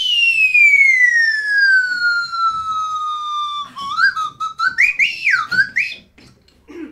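A whistle sounding one long falling glide over about four seconds, then a run of quick warbling notes that swoop up and down.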